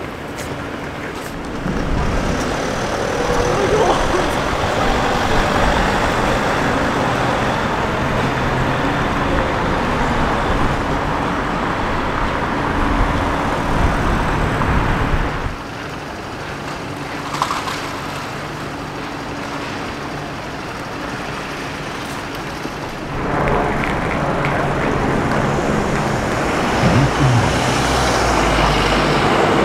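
City street traffic: a steady rush of passing road vehicles, dipping for several seconds about halfway through and swelling again near the end.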